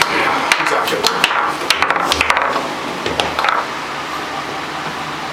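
Foosball being played: the ball clacks against the hard plastic players and rods, with a quick run of sharp knocks in the first two seconds and a few more about three seconds in.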